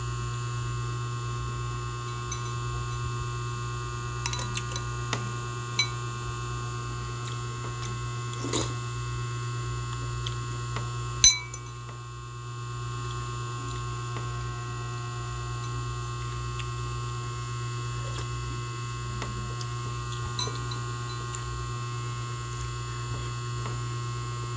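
Metal spoon clinking against a glass bowl several times, the sharpest clink about halfway through, over a steady electrical hum.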